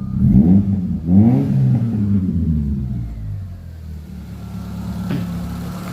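Mitsubishi Lancer's 4G92 inline-four engine running, revved twice in quick succession about a second apart, then settling back to a steady idle. The engine now starts and runs, its no-start fault cured.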